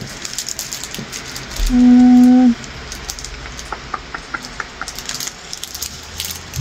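A woman's single closed-mouth 'mmm', held briefly at one steady pitch about two seconds in. Around it are quiet handling sounds with a few light clicks.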